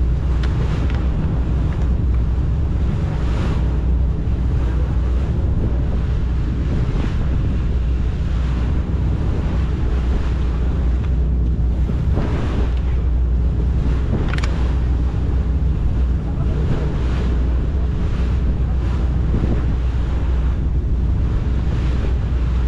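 Tour boat's engine running steadily at cruising speed, a low drone under the rush of water along the hull, with wind buffeting the microphone.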